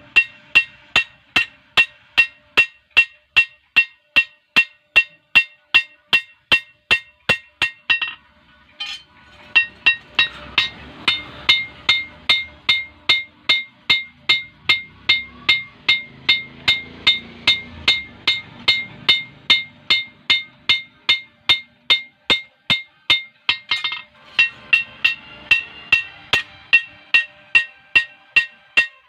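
Hand hammer beating a steel tree-cutting knife blade on an anvil, in a steady rhythm of about two to three ringing blows a second. The hammering stops for about a second and a half near the eight-second mark, then carries on.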